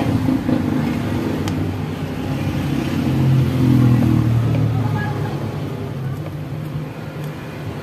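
A steady engine hum that swells and falls about three to four seconds in, with a couple of faint light clicks.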